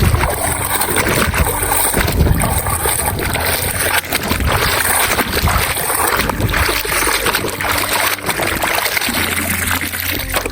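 Water splashing and trickling as toy vehicles are washed by hand, a dense, irregular sound throughout.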